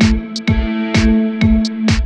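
Background music with a steady beat: a kick drum about twice a second under held notes, with a lighter ticking percussion between the kicks.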